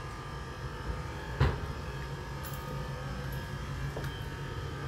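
Bruno custom curved stairlift's drive motor running as the chair travels along the rail: a steady electric hum, with a single knock about a second and a half in.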